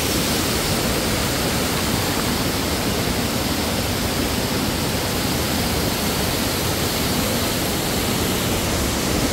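A steady, loud rushing noise with no clear pitch or rhythm.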